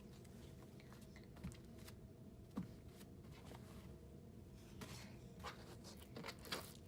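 Faint, sporadic rustling and soft taps of a paper towel being used to dry slime-covered hands, over low room tone.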